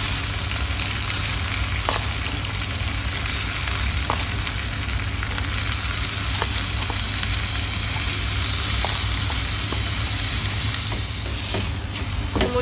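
Steady sizzling of soaked raw rice frying in a hot wok of spiced oil and onion as it is tipped in and stirred with a wooden spatula, with a few faint taps.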